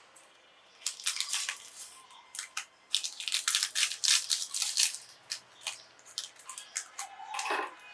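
Biscuits cracking and crunching as a meat grinder crushes them: a dense run of sharp, crisp cracks that starts about a second in and is thickest a few seconds later.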